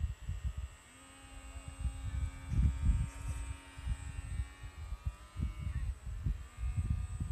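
Wind buffeting the microphone in uneven gusts, over a faint steady motor whine from a radio-controlled model boat. The whine shifts pitch near the end as the boat turns.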